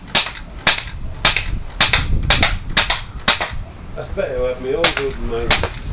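CO2-powered AK47 replica BB gun firing .177 steel BBs shot after shot, sharp cracks about two a second, with a short pause a little over three seconds in.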